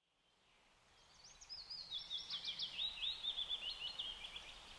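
A songbird singing one rapid, varied phrase of chirps and short whistles, starting about a second in, over a faint hiss that fades up from silence.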